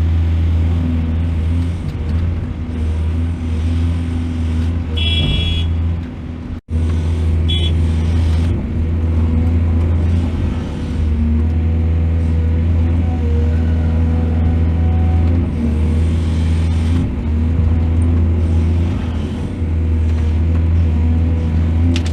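Heavy diesel engine of an excavator running steadily with a deep drone, with a brief high-pitched squeal about five seconds in and again shortly after. The sound drops out for an instant at about six and a half seconds.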